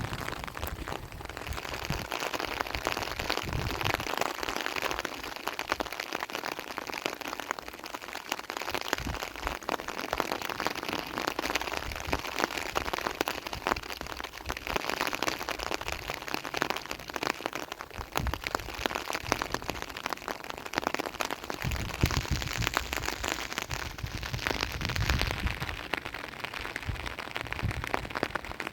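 Steady rain falling, a dense crackle of drops striking a surface, with a few low rumbles near the start and again near the end.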